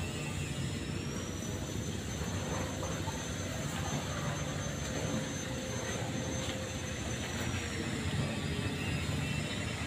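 A machine running steadily: a low drone with a thin high whine above it that rises slightly about a second in and falls back near the end.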